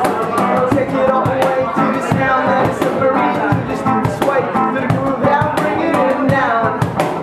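Reggae band playing live: a man singing over electric and acoustic guitars, with steady percussive hits keeping the beat.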